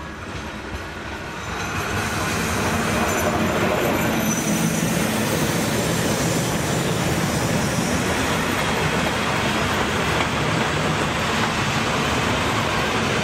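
Vintage steam-hauled passenger train of old coaches rolling past close by, its wheels rumbling on the rails. It grows louder over the first two seconds as the locomotive comes alongside, then holds steady as the coaches go by.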